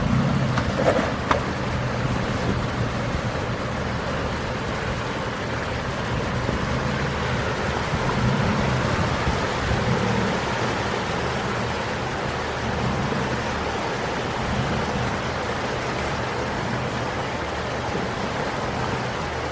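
A vehicle engine running at low revs under a steady rush of moving water, the sound of an off-road river crossing.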